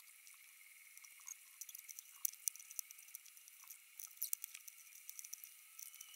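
Faint, irregular clicks of small LEGO plastic pieces being handled, picked from the tabletop and fitted together.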